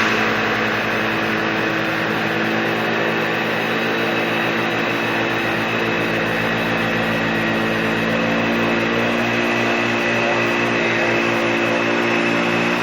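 Dyson DC65 Animal upright vacuum cleaner running steadily while vacuuming a car floor mat, a constant motor hum with several steady tones.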